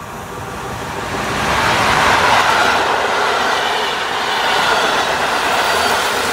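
Electric-hauled passenger train passing close by: the EU160 Griffin locomotive and its coaches run past. The sound of the wheels on the rails and the passing coaches grows over about the first two seconds, then holds as a steady loud rush.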